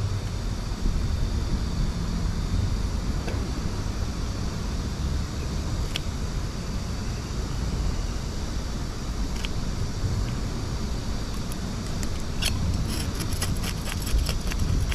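Steady low rumble of road traffic from the bridge overhead. Near the end comes a run of quick scraping clicks from a knife working over a fish on the rock.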